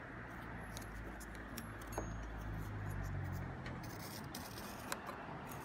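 Steel washer and pencil drawn along the edge of a timber beam, a faint scratching with a couple of light clicks, over a low background rumble that fades after about three seconds.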